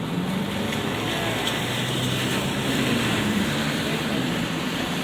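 Street traffic in light rain: a vehicle's engine hum passes over a steady hiss of tyres on wet road and falling rain, swelling slightly mid-way.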